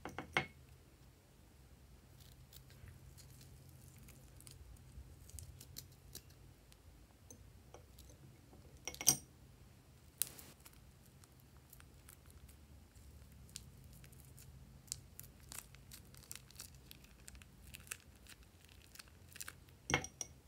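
Faint crinkling and scattered clicks of a plastic piping bag being handled and squeezed, with a few sharper clicks about nine and ten seconds in and again near the end.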